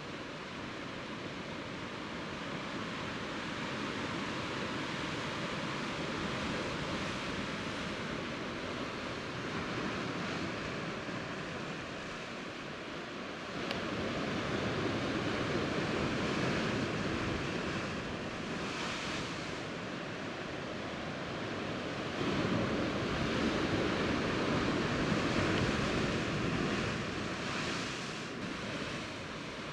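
Sea surf washing against shore rocks, a steady rush that swells louder about halfway through and again a few seconds later.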